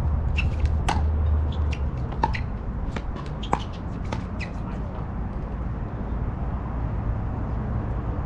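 Pickleball rally: three sharp hollow pops of paddle on ball about 1.3 seconds apart, with lighter ticks in between. The hits stop about halfway through, leaving a steady low rumble.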